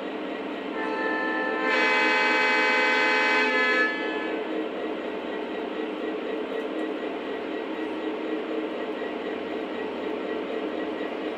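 Model Burlington Northern diesel locomotive's sound system blowing its horn once. The horn is soft for about a second, then loud for about two seconds, and cuts off about four seconds in. Under it runs a steady rumble of the diesel engine sound and the train running on the track.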